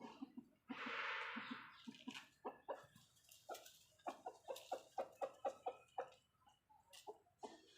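Budgerigars squawking and chattering: a harsh, rasping screech about a second in, then a quick run of short, clucking calls, about four or five a second.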